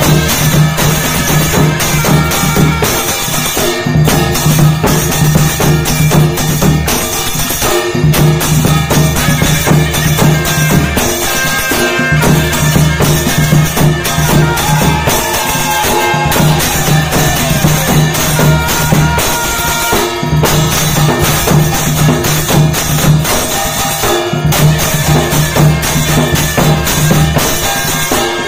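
Traditional devotional music with drums and other percussion, playing steadily in a pattern whose low held tone repeats about every four seconds.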